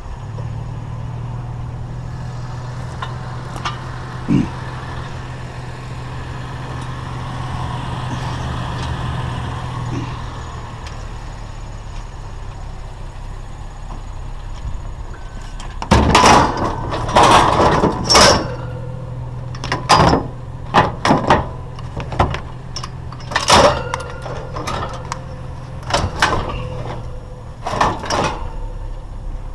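A vehicle engine runs with a steady low hum, then about halfway through comes a series of loud clanks and bangs as scrap items are handled and dropped.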